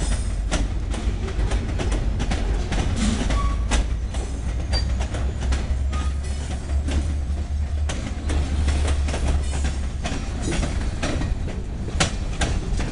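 Covered hopper cars of a freight train rolling past, wheels clacking over the rail joints in a run of irregular sharp clicks over a steady low rumble.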